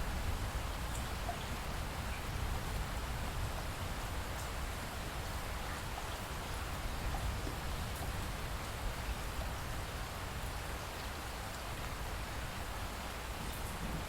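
Light rain falling steadily, with scattered faint drips and a steady low rumble underneath.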